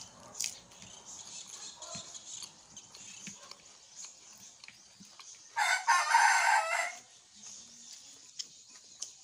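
A rooster crowing once, a loud call of just over a second a little past halfway, over faint eating noises.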